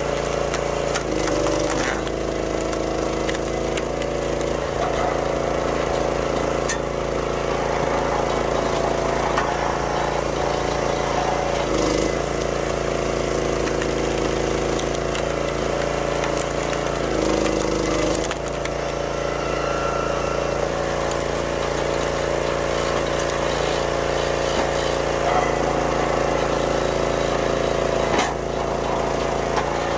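Small gas engine of a 25-ton YardMax log splitter running steadily, its note shifting briefly a few times, with maple rounds cracking and splitting.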